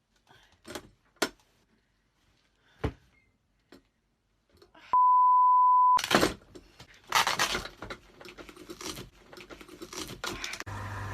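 Alarm beep, a single steady high tone about a second long, then several seconds of irregular clattering and rattling from the face-slapping alarm machine. A steady mechanical hum starts near the end.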